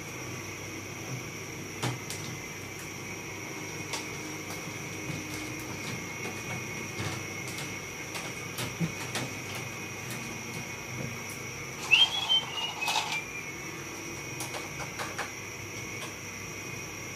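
Scattered light clicks and taps of plastic air-conditioner parts being handled and wiped, with a short louder rattle and squeak about twelve seconds in. A steady whirring hum with a faint high whine runs underneath.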